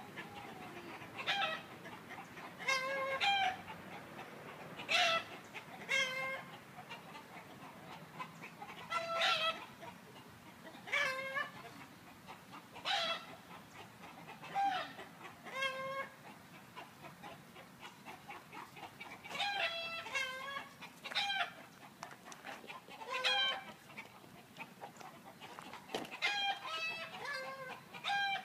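Domestic chickens clucking: short calls repeated every second or two, sometimes two close together.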